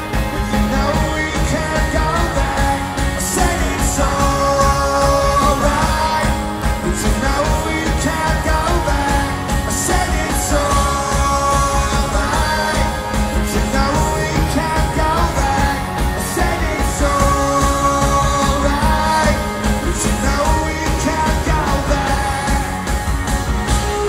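Live rock band playing: a male voice singing over electric guitars and drums, with a second voice singing backing.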